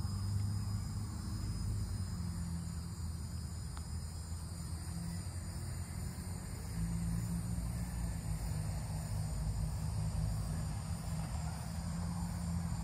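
A 2003 Mercedes-Benz SL500's V8 idling steadily, with a steady high insect sound in the background.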